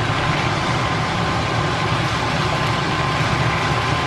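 Steady rushing noise with a faint constant whine, typical of a range hood exhaust fan running over a stove where chicken pieces are cooking in a wok.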